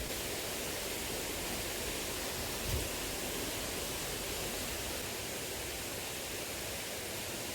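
Steady rushing of a small river's flowing water, with one soft low thump about three seconds in.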